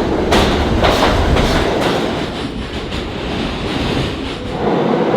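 New York City subway train running, its wheels clacking over rail joints about twice a second at first, then a steady rumble.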